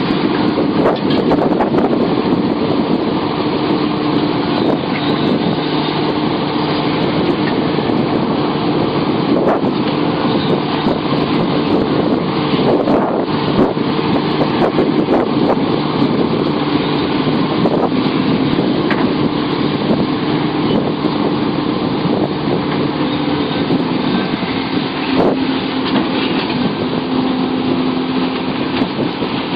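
Sumitomo SH700LHD-5 excavator's diesel engine running steadily under work, its pitch shifting slightly in the second half, with a few sharp knocks.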